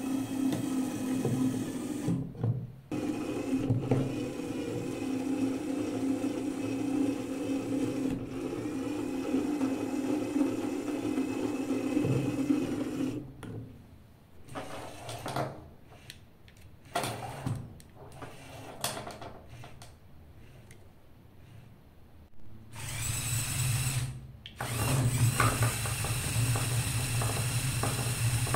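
Small electric toy motors, original LEGO Power Functions and red Chinese imitations, running on a battery box with a steady whirring whine. It breaks briefly just after the start, drops to quieter, intermittent whirs from about halfway, and near the end turns into a louder, deeper hum as the motors pull under load.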